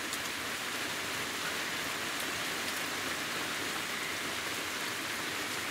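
Torrential rain on a thin one-touch tent, heard from inside as a steady, dense hiss.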